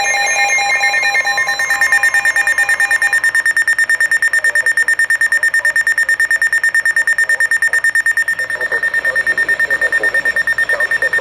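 Weather alert radio sounding its alarm for a tornado warning: one high beep pulsing rapidly and evenly, about eight times a second. For the first three seconds further beeping tones at other pitches sound alongside it.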